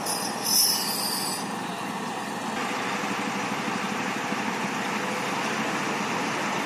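Heavy truck moving a multi-axle low-bed trailer loaded with a tracked mobile screening plant, its diesel engine running steadily under load at low speed. Short high-pitched squeals come from the rig in the first second or so.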